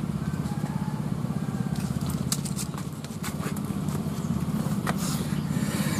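A small engine running steadily with a fast, even pulse, with a few footsteps and sharp clicks between about two and five seconds in.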